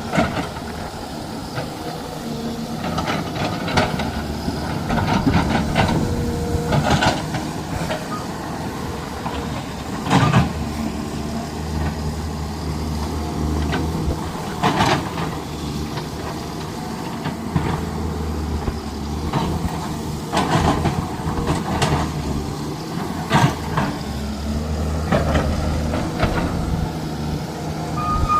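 Heavy diesel engines running, a steady low rumble that swells and eases, with short sharp knocks and hisses every few seconds.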